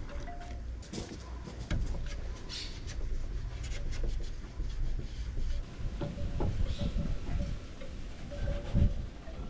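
Rubbing and light handling noises as a wipe is drawn along the painted metal edge of a car's front trunk lid, with scattered clicks. There is a low wind rumble on the microphone that drops away about halfway through.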